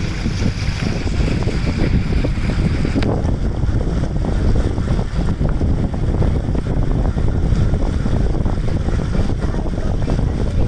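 Wind buffeting the microphone aboard a moving boat on a lake, over the boat's steady running noise. A higher hiss drops away about three seconds in.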